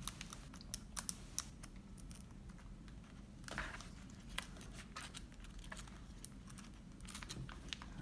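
Faint small clicks and a brief rustle about three and a half seconds in, from fingers handling a laptop's display cable connector while lining it up to fit into the replacement screen.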